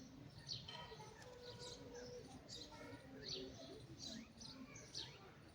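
Faint chirping of small birds: short high chirps repeating about every half second, with faint voices in the background.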